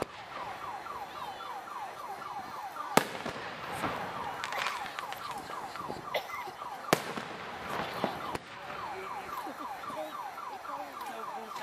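Fireworks show: two sharp bangs of shells about three and seven seconds in, with smaller pops and crackle between. A rapid chirp, a short falling tone repeating about four times a second, runs underneath.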